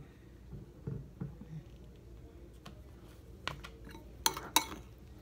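Tortillas being handled on a ceramic plate: soft knocks about a second in, then a few sharp clinks against the plate, the loudest two close together near the end.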